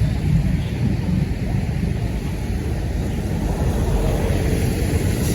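Roadside traffic rumble, with a heavy vehicle's engine growing louder near the end as it approaches.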